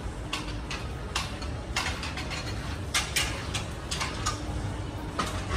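Stroller being pushed over a tiled floor, its wheels and frame giving irregular clicks and rattles over a steady low hum.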